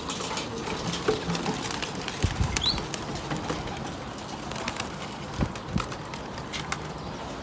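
Domestic pigeons cooing, with wings flapping and clattering now and then.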